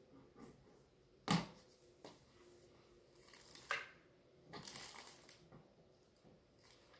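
Handling noises: a few separate knocks, the loudest about a second in, another near the middle, then a short stretch of faint rustling.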